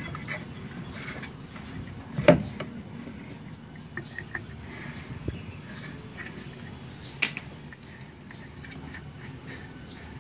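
Plastic spool of copper-coated MIG welding wire being handled and pushed onto a wire feeder's spindle. There is a sharp knock about two seconds in and a smaller one about seven seconds in, with light clicks and rubbing between.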